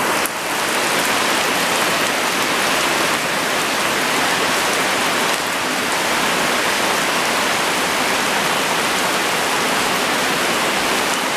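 Steady, heavy rain falling, a dense even hiss of drops on surfaces.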